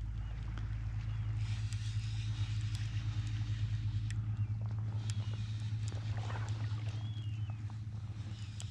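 Steady low drone of a boat engine running. A few short, high, bending bird calls come about five and seven seconds in.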